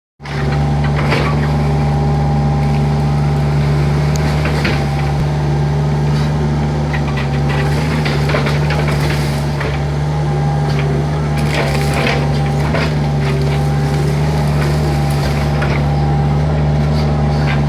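Hitachi excavator's diesel engine running steadily, with scattered knocks and crunches from the bucket digging out a ditch.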